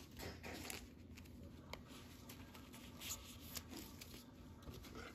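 Faint handling of trading cards and plastic card sleeves: a few light taps and rustles over a low steady hum.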